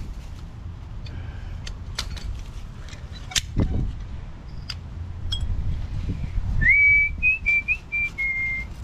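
A person whistling a short tune near the end, a few held notes stepping up and down for about two seconds. Before that, scattered clicks and taps, with wind rumbling on the microphone throughout.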